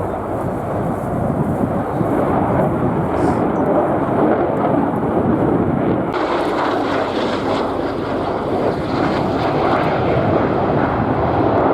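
Fighter jet flying a display, its engine noise a loud steady rush that turns brighter and harsher about six seconds in.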